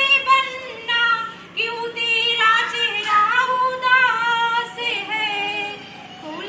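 Several women singing a folk song together, unaccompanied, with long held notes.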